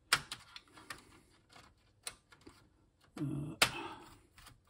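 Scattered sharp clicks and taps of hand tools and small parts being worked on a computer motherboard, the loudest a little over three and a half seconds in.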